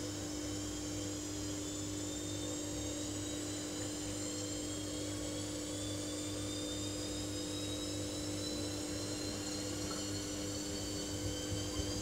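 Samsung front-loading washing machine running: a steady motor hum with a high whine that rises slowly in pitch as the motor speeds up.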